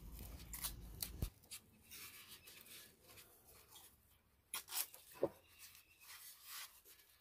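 Masking tape being pressed and smoothed onto a terracotta clay pot by a gloved hand: soft rubbing and crinkling of the tape, with a few faint taps and clicks, the sharpest about five seconds in.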